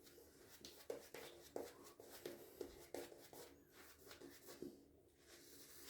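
Faint, irregular swishing strokes of a shaving brush with a synthetic Timberwolf knot working shaving soap into lather.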